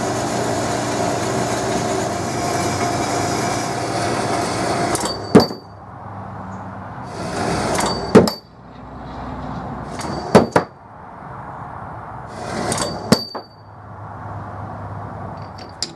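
Metal-cutting bandsaw running through 3/4-inch stainless steel bar. Cut-off lengths drop onto the wooden floor several times and clink against the other pieces with a sharp metallic ring.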